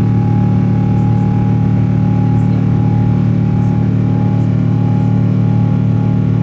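Boeing 777 jet engine heard inside the cabin during the climb after takeoff: a loud, steady drone made of several held hum tones over a rushing hiss.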